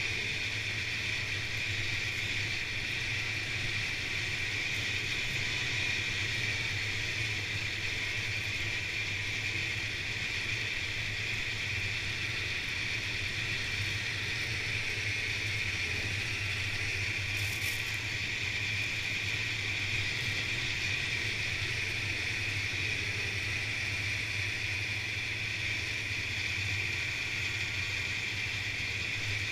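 Snowmobile running steadily along a trail at constant speed: a low engine drone with a steady high whine over it, unchanging throughout.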